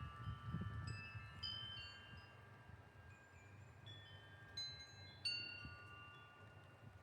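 Wind chimes ringing in the wind, a few chimes struck at a time and left ringing with long overlapping tones, with fresh strikes about a second in and again past the middle. A low rumble of wind gusts sits under them, fading after the first second.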